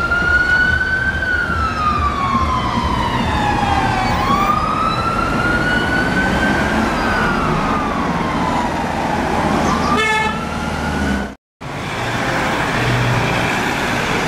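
Fire engine siren in a slow wail, each sweep rising and falling over a few seconds, over the truck's running engine. A short rapid yelp burst sounds about ten seconds in. The siren then cuts off, and steady road traffic noise follows.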